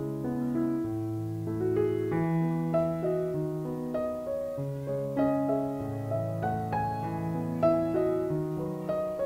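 Background piano music: a slow melody of held notes over a lower accompaniment.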